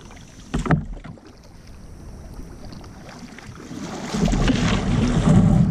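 Kayak paddle strokes splashing in shallow river water, with a sharp knock about half a second in. From about four seconds in, a louder rough rush of water and hull noise builds as the kayak is driven into the shallows.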